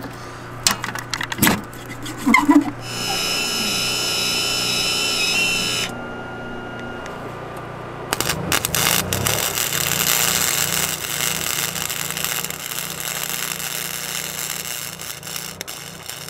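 Lincoln Electric 125 wire-feed welder in use. First come clicks and knocks as the wire spool is handled. A steady hiss follows, from about three to six seconds in. Then, from about eight seconds in, the arc crackles continuously as a bead is run, welding a steel hitch onto a sled.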